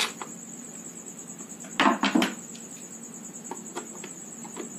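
A screwdriver and screws are worked into the plastic base of a mixer grinder as its cover plate is fitted. There is a sharp click at the start, two louder knocks about two seconds in, and small scattered clicks, over a steady high-pitched trill.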